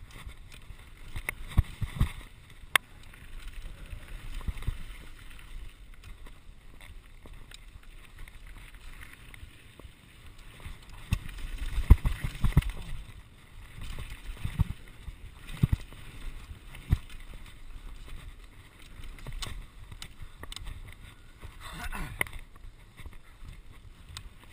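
Santa Cruz Nomad mk2 mountain bike rattling and knocking over a rough, rocky dirt trail at speed, tyres crunching on loose gravel, with wind rumbling on the chest-mounted camera's microphone. The knocks come irregularly, with the hardest hits about two seconds in and around the middle.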